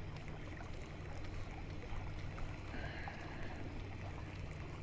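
Yamaha outboard motor running with a steady low hum at trolling speed, over the wash of water around the boat.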